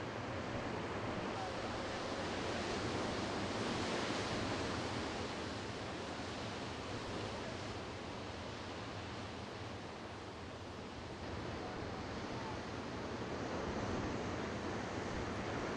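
Steady rush of ocean surf and wind on a rocky shore, swelling and easing slowly.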